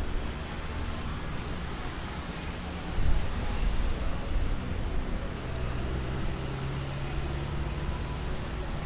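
City street traffic: a steady wash of passing cars, swelling briefly about three seconds in, with a low engine hum coming in about halfway through.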